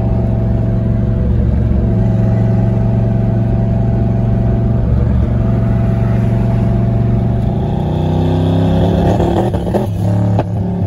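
Turbocharged 5.0 V8 of a 1992 Fox-body Mustang running steadily under way. About eight seconds in, the engine note shifts in pitch, with a few sharp clicks near the end.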